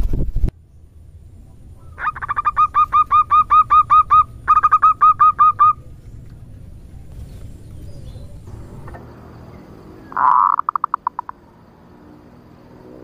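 Female zebra dove (perkutut) calls used as a lure for wild doves. A fast run of about sixteen hooked cooing notes, some four a second, breaks briefly midway. Some five seconds later comes a rough burst that breaks into a quick rattle of notes. A brief loud thump at the very start.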